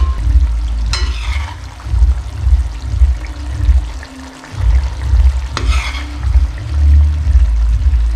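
Perforated metal spoon stirring and turning over thick fish-head curry in a metal pot, with two sharp scrapes against the pot, about a second in and again just before six seconds. A heavy low rumble lies underneath.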